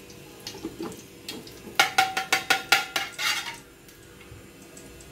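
Steel spoon stirring inside a stainless steel pot: light scraping at first, then a quick run of about seven clanks against the pot with a ringing tone, ending in a short scrape.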